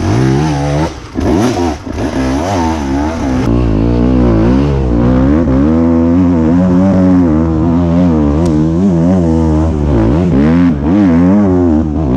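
Enduro motorcycle engine revving hard off-road, its pitch rising and falling with quick throttle changes and dropping off briefly twice near the start.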